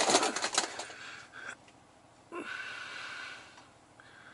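Rustling and clattering of hands and gear in the first second, then a person breathing out heavily for about a second, with effort while reaching up under the truck to thread a grease line onto its fitting.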